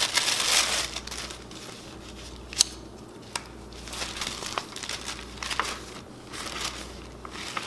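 Paper rustling as the pages of an instruction booklet are handled and turned, loudest in the first second, with a few sharp ticks of paper after.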